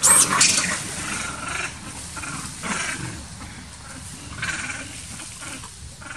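Macaques screaming: a loud, shrill scream at the very start, then several shorter shrill cries over the next few seconds.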